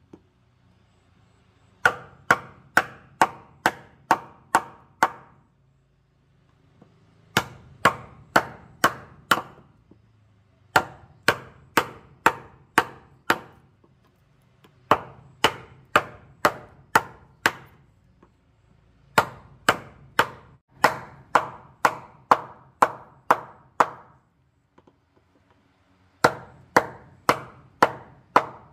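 Wooden mallet striking a steel chisel to chop a mortise slot in a wooden board. The sharp knocks come about three a second in runs of six to twelve, with short pauses between the runs.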